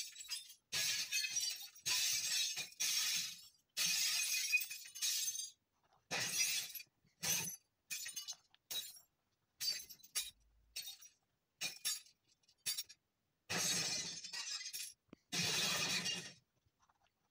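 Pen scratching across sketchbook paper in irregular strokes, each a scratchy hiss from a fraction of a second to about a second and a half long, with silent gaps between.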